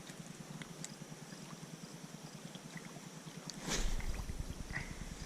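Faint lapping of lake water, then about three and a half seconds in a short rush of noise followed by a low rumble.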